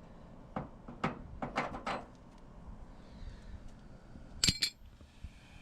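Brass pipe fittings and tools clinking against each other while being handled: several light clicks, then a louder double clink with a short metallic ring near the end.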